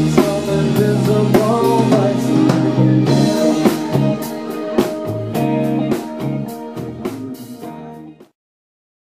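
Live rock band playing electric guitars and a drum kit with a steady beat. The music fades and cuts out to silence about eight seconds in.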